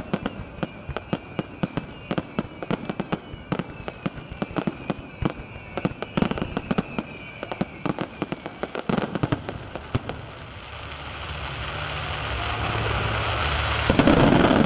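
Fireworks display: rapid, irregular bangs and crackles of aerial shells bursting. After about ten seconds a rushing noise builds steadily and ends in a loud burst near the end.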